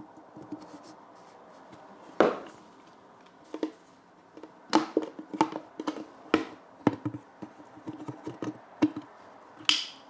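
Plastic knocks and scrapes as a water filter cartridge is pushed down into its seat at the bottom of an espresso machine's water tank. About eight separate knocks, then near the end a sharper, higher click as the cartridge engages.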